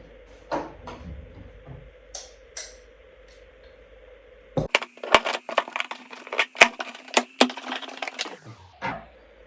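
Packaging being handled: a few scattered clicks, then, about halfway in, some four seconds of dense crackling and snapping.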